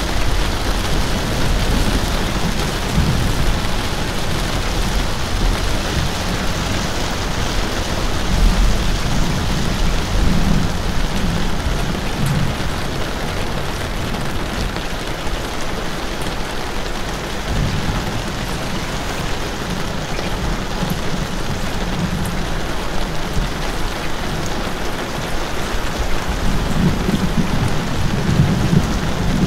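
Steady, heavy rain falling in a dense hiss, with a deep low rumble that swells a couple of times, about a third of the way in and again near the end.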